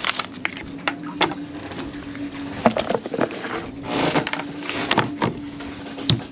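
An endoscope camera's coiled cable lifted out of its cardboard box and a phone handled on a wooden table: a string of light clicks and knocks over a steady low hum.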